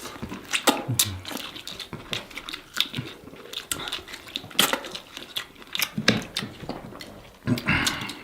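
Close-miked eating of saucy seafood: wet chewing, lip smacks and slurps, a string of irregular sharp clicks with a longer rush of noise near the end.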